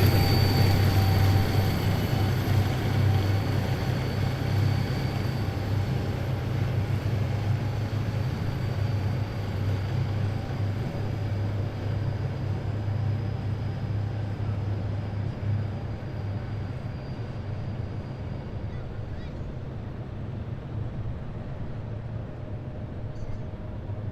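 Deep, steady rumble of heavy military vehicle engines with a faint high whine, fading slowly as the column moves away.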